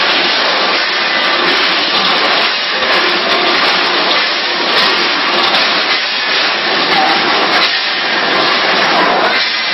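Automatic rotary pouch-bagging machine running: a steady, dense mechanical noise with no clear rhythm.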